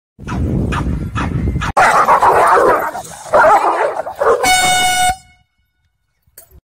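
Dogs growling and snarling in a scuffle, loudest in the middle. About four and a half seconds in, a short steady horn blast of about half a second.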